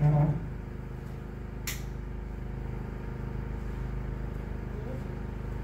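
Steady low hum of room air conditioning running, with a single sharp click about a second and a half in.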